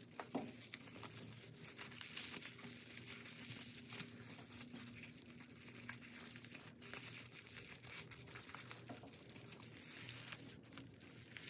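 Packaging being handled while packing: continuous crinkling and rustling with small clicks and tearing sounds. A faint steady low hum runs beneath it.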